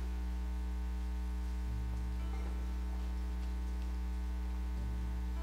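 Steady electrical mains hum with its evenly spaced overtones, with a faint low tone sounding briefly twice.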